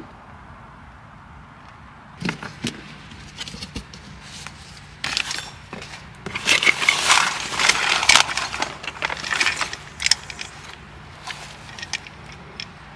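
Gear being rummaged through and lifted out of a packed plastic ammo crate: irregular rustling of plastic wrapping and fabric with light knocks and scrapes against the crate, busiest in the middle.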